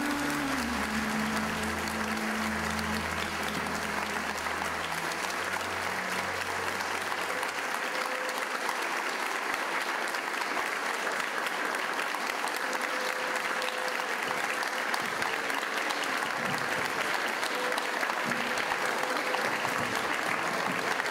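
Audience applauding steadily. Sustained closing music fades out under the clapping over the first several seconds.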